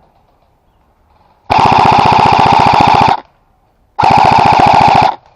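Airsoft rifle firing two loud full-auto bursts, the first about a second and a half long, the second about a second, each a rapid even rattle of shots.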